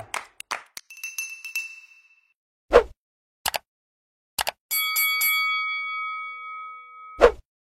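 Bell dinging: a short ring about a second in, then several quick strikes about five seconds in, followed by a ring that fades over two seconds or so. Single sharp thumps fall in between.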